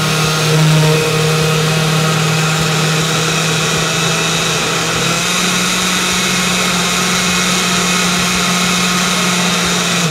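Countertop blender motor running steadily at full speed, churning a thick cream-cheese and milk mixture. Its hum steps up slightly in pitch about halfway through, and the motor stops at the very end.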